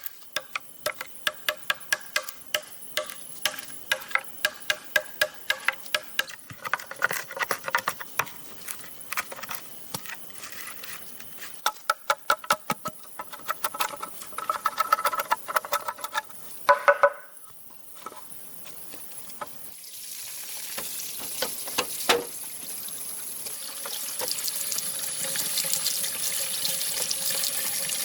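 Quick runs of sharp knocks, each with a hollow ringing tone, typical of a blade chopping or splitting green bamboo. From about twenty seconds in, a steady sound of running water takes over.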